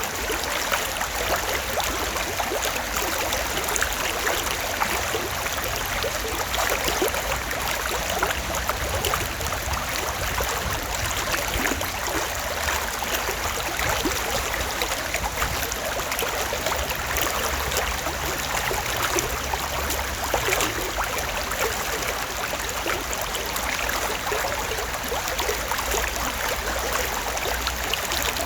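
Shallow stream water running steadily over stones, a continuous rushing babble full of small splashes.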